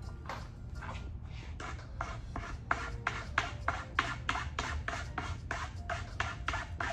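Bahco carbide scraper drawn in short, quick strokes along the edge of a wooden table-top board, scraping old glue residue off the joint. The strokes start faint and sparse, then from about two seconds in come louder and regular, about three a second.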